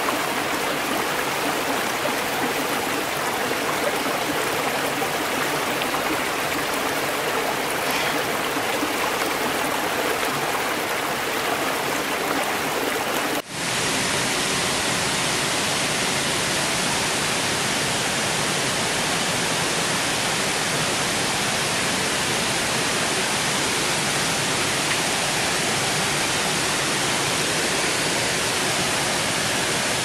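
Water rushing over stones in a shallow rocky stream. About thirteen seconds in it changes abruptly to the steadier, fuller rush of water spilling over a low weir into a foaming pool.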